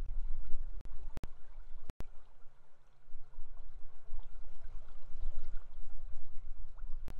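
River water flowing steadily, with a heavy low rumble underneath and a few sharp clicks and brief dropouts in the feed.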